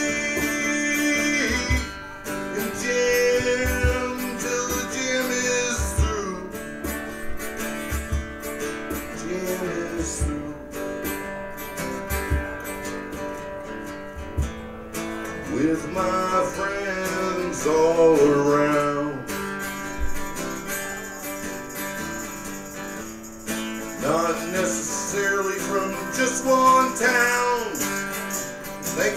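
Live band music led by guitar, with melodic lines that bend and swell over low thumping beats.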